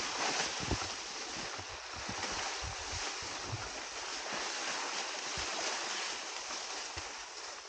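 Dry dwarf bamboo (sasa) leaves and stems rustling steadily as a hiker pushes through dense chest-high thicket, with occasional low thumps.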